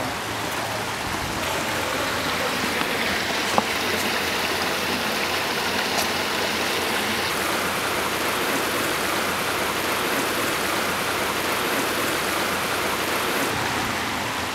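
Shallow stream running over rocks: a steady rush of flowing water, with a single sharp click about three and a half seconds in.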